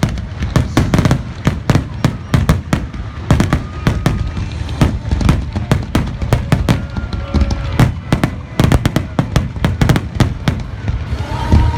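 Fireworks display grand finale: a dense, continuous barrage of bangs and crackles, several reports a second, over a heavy low rumble.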